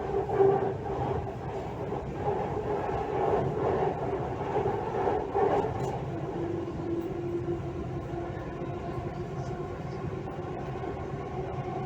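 Delhi Metro train running between stations, heard from inside the carriage: a steady rumble with a humming whine that drops a little in pitch about six seconds in.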